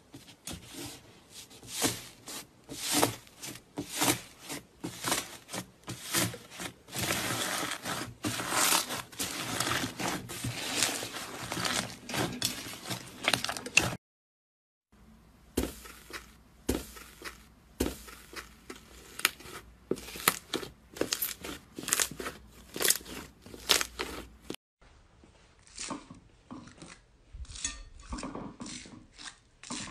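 Slime being pressed and squished by hand, crackling and popping in quick runs of clicks, with a short silent break about halfway. Near the end, green foam-bead slime crunches as it is poked and pressed.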